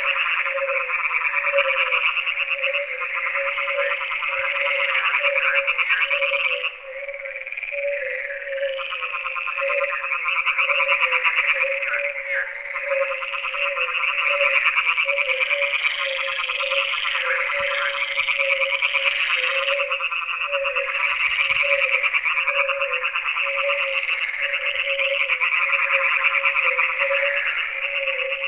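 A dense chorus of frogs calling all at once: many overlapping trains of rapid croaking pulses, over a lower steady pulsing call, with a brief lull about seven seconds in.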